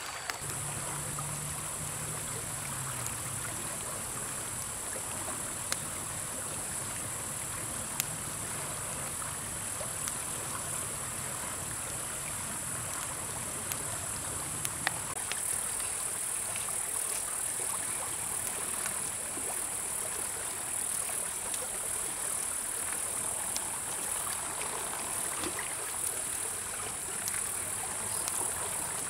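River water rushing steadily over rocks, with a high, even insect drone above it and a few sharp crackles from a wood campfire.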